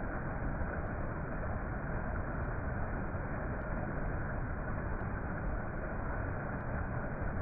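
Steady, even rushing of a waterfall, with a few faint short ticks.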